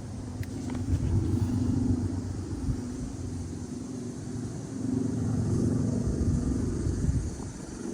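A low rumble that swells about a second in and again around five seconds in, with a faint wavering hum under it.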